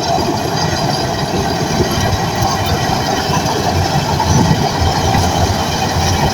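Shantui bulldozer's diesel engine running steadily, with the rattle and clank of its steel tracks.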